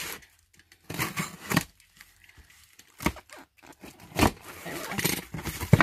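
Box cutter slicing through packing tape and plastic wrap on a cardboard box, with several short tearing and crinkling sounds as the box is handled.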